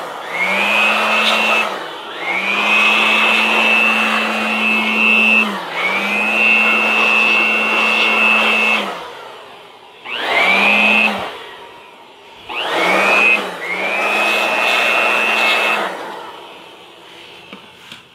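Small handheld electric blower switched on and off in several bursts, its motor whine rising in pitch as it spins up each time and holding steady. It winds down near the end.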